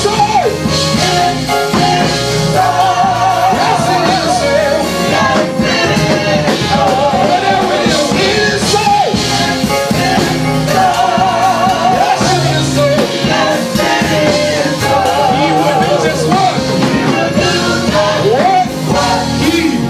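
Live gospel praise music: a band with drum kit playing under lead singing with heavy vibrato, without pause.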